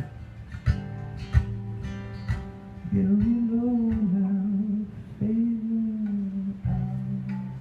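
Acoustic guitar strummed live, with a man's voice holding two long sung notes from about three seconds in, then the chord left ringing near the end.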